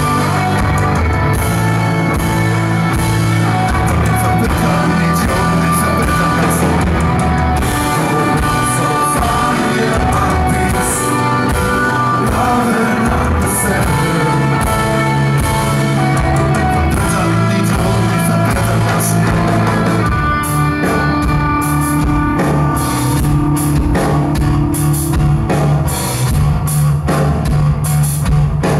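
Live rock band playing: electric guitars, bass guitar and drum kit, the drums hitting harder from about two-thirds of the way in.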